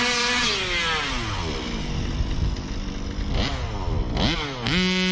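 Two-stroke gas engine of a Baja 5B 1/5-scale RC buggy running: its revs fall off to a low idle, it is blipped twice quickly, then it revs back up and holds high near the end. The engine is running fine, with nothing wrong with it.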